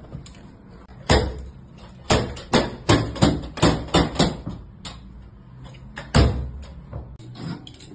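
Rubber mallet striking carpet laid on the floor, bedding it down. A string of about a dozen sharp blows comes at an uneven pace, fastest around two to four seconds in at roughly three a second, with a single heavy blow about six seconds in.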